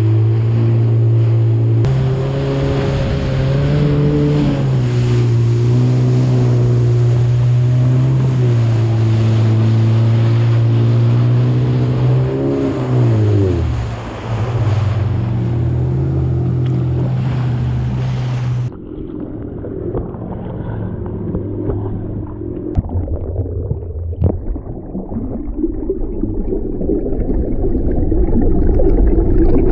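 Jet ski engine running over open water with spray, its pitch rising and falling as the throttle is worked, dropping sharply once about halfway through. About two-thirds of the way in the sound turns abruptly dull and muffled, with the engine and water still heard.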